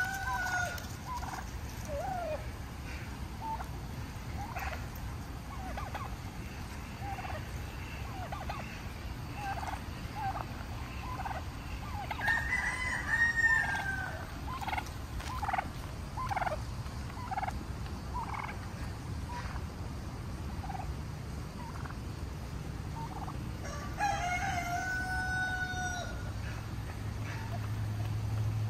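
Black domestic turkey calling: a string of short clucks and peeps, with two longer drawn-out calls, one about halfway through and one near the end.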